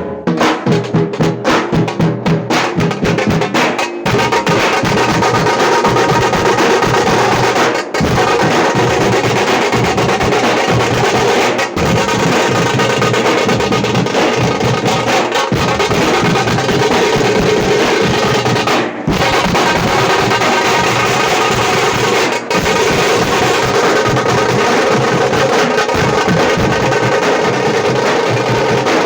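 Tamate frame drum beaten with sticks in a fast, dense rhythm, with a few momentary breaks.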